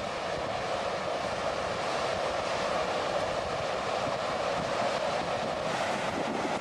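Floodwater rushing in a steady, continuous roar, with no breaks or separate impacts.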